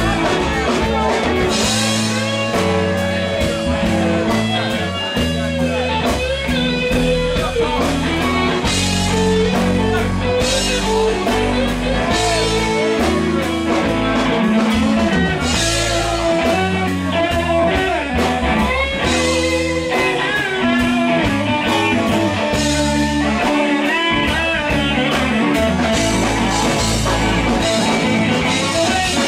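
Live blues-rock band playing: electric lead guitar carrying bending melodic lines over bass guitar and a steady drum-kit beat.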